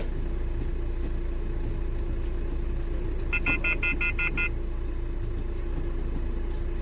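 Hyundai i20 engine idling steadily at its normal idle speed, running smoothly now that the open injector circuit has been repaired. About halfway through, a quick run of seven short electronic beeps sounds over it.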